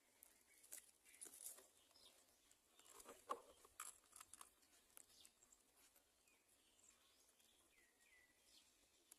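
Faint scattered clicks and rustling, loudest a little over three seconds in, then a few faint bird chirps that glide in pitch in the second half.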